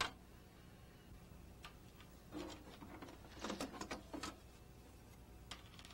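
Faint, irregular plastic clicks and rattles from an Apple LaserWriter Pro laser printer's casing being handled, bunched in the middle, with one sharper click at the very start.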